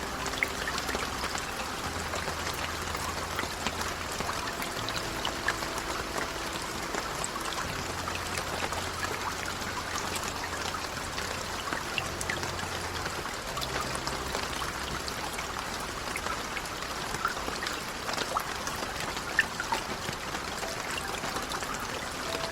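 Steady rain, with many individual drops ticking and splashing over a constant patter and trickling runoff water.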